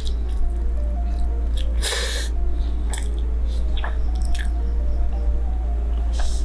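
Close-miked eating sounds: ramen noodles being slurped and chewed, with one loud slurp about two seconds in and a few small clicks of a fork, over quiet background music.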